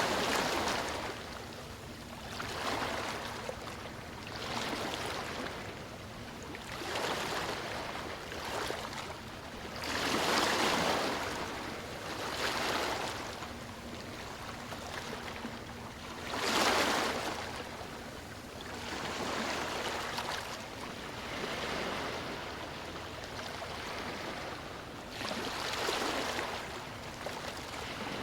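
Sea waves breaking and washing up a beach, a swell every two to three seconds, with bigger breakers about ten, seventeen and twenty-six seconds in.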